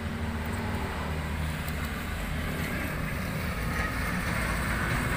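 A running motor's steady low hum, unbroken, over faint outdoor background noise.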